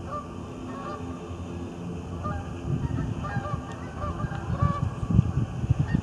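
A flock of geese honking, many short calls overlapping, with a low rumble of wind on the microphone that grows stronger in the second half.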